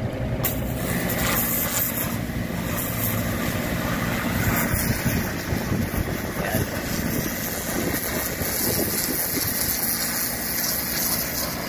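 High-pressure washer jet hissing steadily as it blasts mud off a wheel loader transmission casing, starting about half a second in, with an engine running underneath.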